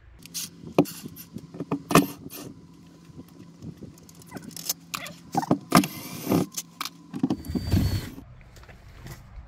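Cordless impact driver's motor running steadily as it backs screws out of a boat's port-light frames, with scattered clicks and knocks from the screws and tool. The motor stops about 7 s in, followed by a short low rumble.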